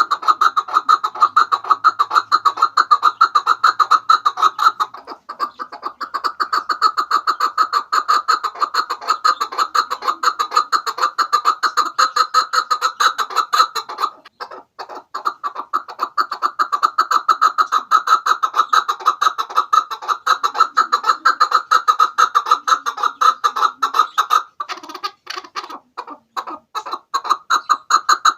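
Chukar partridge (chakor) calling: a long, rapid run of clucking chuk notes, breaking off briefly about fourteen seconds in and again about twenty-five seconds in.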